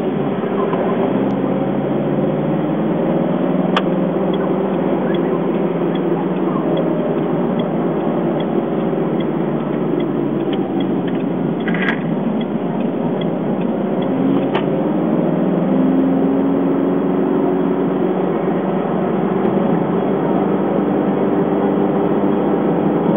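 Car engine and tyre noise heard from inside the cabin while driving, steady throughout, with the engine note shifting in pitch a few times as the speed changes. A few brief clicks are also heard.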